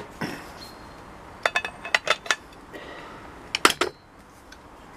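Sharp metallic clicks and clinks from the antique shotgun's break action being worked to test its repaired hinge for play. They come in two short clusters, about one and a half seconds in and again near four seconds.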